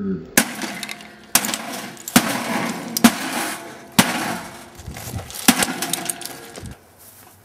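A toaster oven being smashed with repeated heavy blows: about seven sharp impacts, roughly one a second, with a clatter of breaking parts between them.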